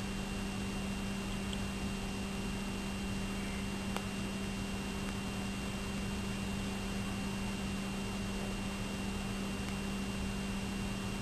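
Steady hiss with a constant low electrical hum and a faint high whine, unchanging throughout; a single faint click about four seconds in.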